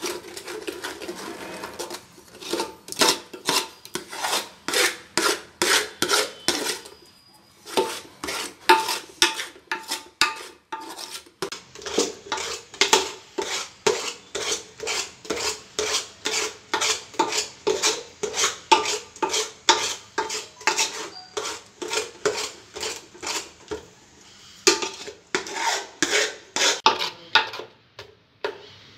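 Metal spoon scraping and stirring thick, reducing milk in an aluminium pot, in a steady rhythm of about two to three strokes a second. The pot rings faintly with each stroke, and the stirring pauses briefly twice.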